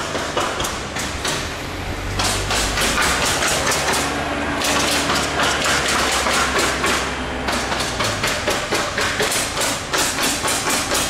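Machinery running in a plant room of ABSOGER PSA nitrogen generators with 55 kW Kaeser compressors. There is a fast rattling clatter of about five or six ticks a second over a steady machine noise. A stronger low hum comes in about two seconds in and drops away about eight seconds in.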